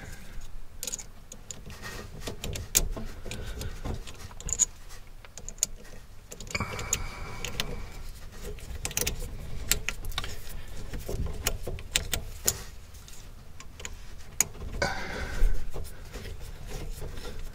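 Irregular small clicks, taps and rattles of hands handling a metal pull-down faucet hose weight on its braided hose and fitting its screw.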